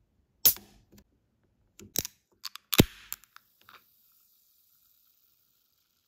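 Pull tab on an aluminium drink can being lifted: several sharp clicks, then the loudest crack near three seconds in as the seal breaks. A short hiss follows and fades into a faint fizz of carbonation.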